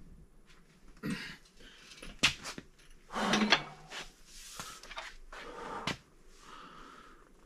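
Steel tools handled on the crankshaft hub of a BMW N55 engine block: a long breaker bar, its socket and a holding bar are fitted and shifted on the hub bolt. Several separate knocks with short scraping bursts between them, the loudest about two and three and a half seconds in.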